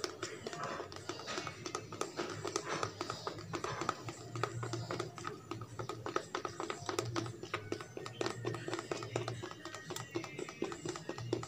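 A plastic spoon stirring thick dish wash gel in a plastic cup, mixing in added salt to thicken it: a rapid, uneven run of light clicks and scrapes, with background music underneath.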